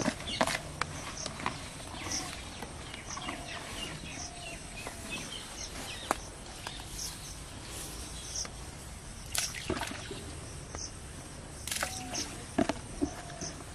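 Outdoor rural ambience: birds calling with many short high chirps and a few rising-and-falling notes, over a steady background hiss. Now and then a sharp click or rustle is heard, louder a few times in the second half.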